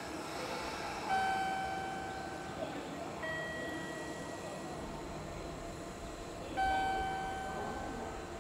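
Station's electronic two-note chime, a lower note then a higher one, sounding twice about five and a half seconds apart over steady station background noise.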